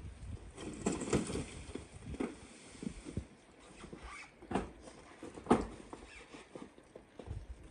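Snow being shoveled off a carport roof: a shovel scraping and chopping into packed snow, with scattered knocks, the loudest about five and a half seconds in.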